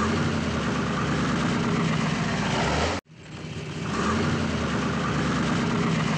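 Engine of a classic Chevrolet car running steadily. The sound cuts out abruptly about halfway through and fades back in.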